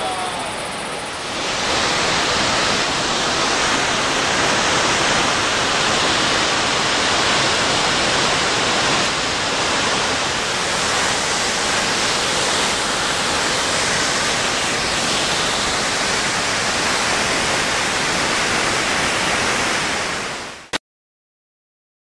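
Large waterfall's falling water, heard close to the base in its spray: a loud, steady rushing noise. It grows louder about a second and a half in and cuts off suddenly near the end.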